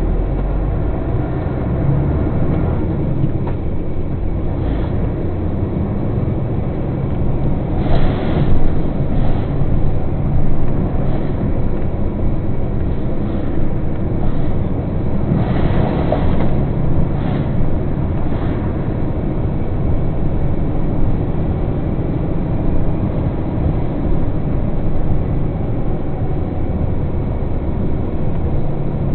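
Truck engine and road noise heard from inside the cab while driving: a steady low rumble, with clusters of louder knocks and rattles about a quarter of the way through and again just past halfway.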